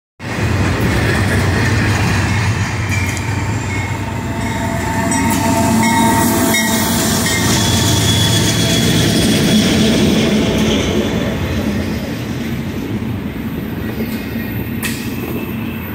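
Norfolk Southern double-stack intermodal freight train passing close by: GE diesel locomotives run past, then the container well cars roll by with steady, loud wheel-on-rail noise. A faint high whine comes in about halfway through.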